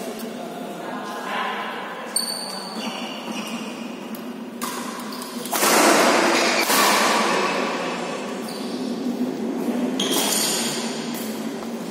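Badminton rally in an echoing hall: sharp racket hits on the shuttlecock and short high shoe squeaks on the court, with a louder noisy stretch about halfway through.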